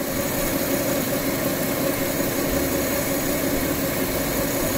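Renault Laguna II's 3.0 V6 (L7X) engine idling steadily, warmed up.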